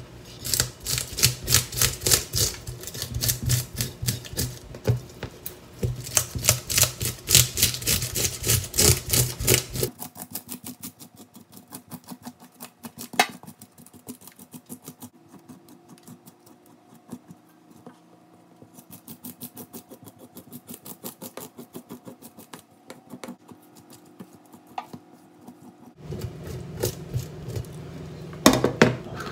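Brass fish scaler scraping scales off a whole sea bream in a stainless steel sink: rapid, rasping strokes, many a second. The strokes are softer through the middle and louder again near the end.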